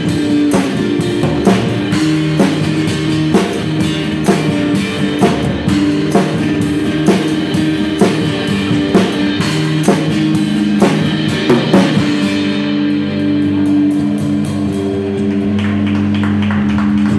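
A small live band plays: a drum kit keeps a steady beat under strummed acoustic guitars, electric guitar and upright bass. The drums stop about twelve seconds in, and the band lets a final held chord ring out.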